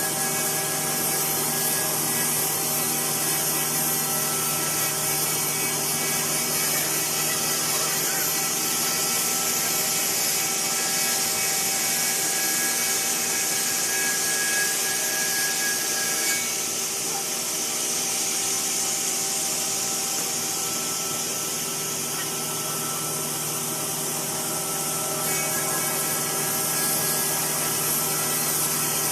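5-axis CNC router's HSD spindle running and cutting wood: a steady machine whine over a continuous high cutting hiss. The hiss eases a little past the middle and picks up again near the end.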